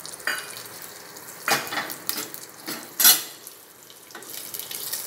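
Slit green chilies and curry leaves sizzling in a little hot oil in a steel pan, with sharp knocks of a wooden spatula against the pan as they are stirred, the loudest about three seconds in. The sizzle grows louder near the end.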